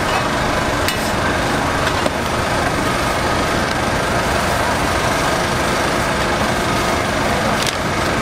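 Steady running noise like a small engine, with a dense hiss, and a few light clicks: about one and two seconds in and again near the end.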